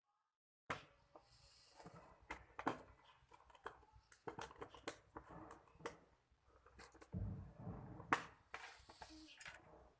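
Handling noise on a tabletop: irregular clicks, taps and knocks as hands move objects about, with a dull thud about seven seconds in. The sound starts abruptly just under a second in.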